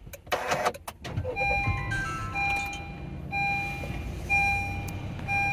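Honda Vezel engine cranking and catching, then running at idle, while the dashboard sounds a short run of falling chime tones followed by a beep repeating about once a second. The beeping is the warning chime that goes with the many warning lights on the cluster.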